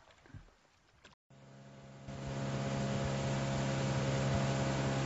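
Engine running at a steady speed. It comes in just after a second, rises over the next second, then holds an even hum.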